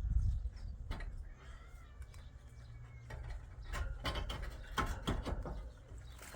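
Irregular clicks and clattering knocks, bunched together about four to five seconds in, over a steady low rumble.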